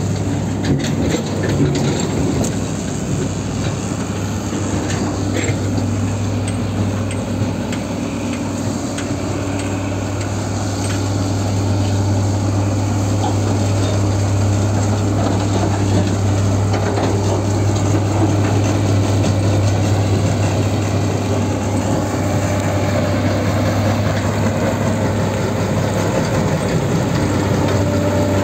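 Terex Finlay J-1160 tracked jaw crusher running under load as it crushes concrete and rubble: a steady low diesel drone over the rattle of broken stone, with a few sharp knocks of rock in the first seconds.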